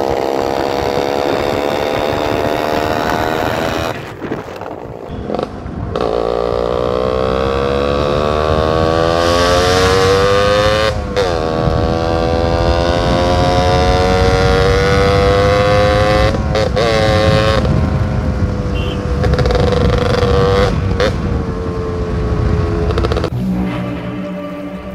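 Two-stroke motorcycle engine running hard and accelerating through the gears: its pitch climbs over several seconds, drops at short breaks for gear changes (about 4, 11, 16 and 21 seconds in), then climbs again.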